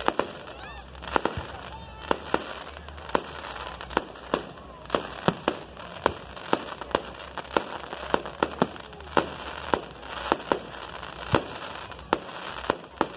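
Aerial fireworks exploding in a rapid, irregular barrage of sharp bangs, roughly one to two a second, with crackle between them.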